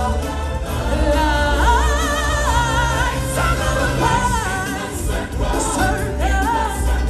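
Costumed stage singers performing a song through microphones over amplified backing music with a steady, heavy bass.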